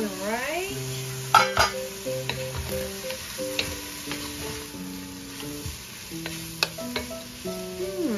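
Wooden spatula stirring shredded chicken and carrots sizzling in a stainless steel pot, with scattered knocks and scrapes of the spatula against the pot. The loudest knock comes about a second and a half in. Background music with held notes plays throughout.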